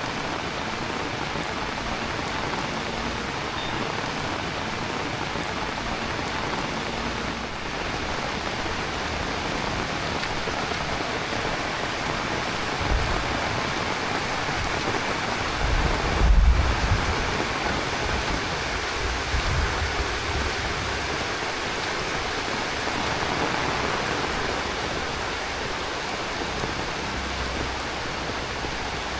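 Heavy rain falling steadily, with a few short low rumbles partway through, the loudest a little past halfway.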